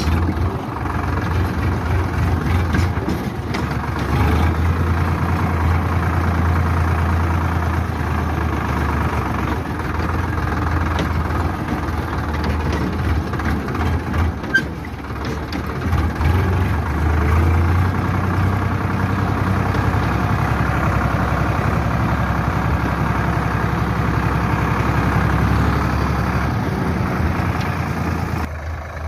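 Sonalika DI 745 III tractor's three-cylinder diesel engine running under way, close up from the driver's seat, its note swelling and easing with the throttle. A brief sharp click about halfway, and the engine sound drops away sharply near the end.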